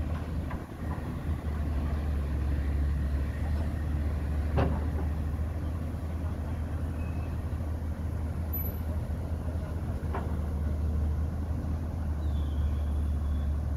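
Heavy excavator diesel engines running with a steady low drone. Two short sharp knocks sound over it, about four and a half and ten seconds in.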